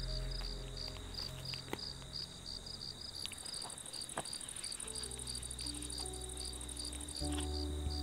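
Crickets chirping in an even rhythm, about three chirps a second, over a continuous high insect trill. A faster, higher insect buzz joins about three seconds in and stops near the end. Low, held background music tones play underneath.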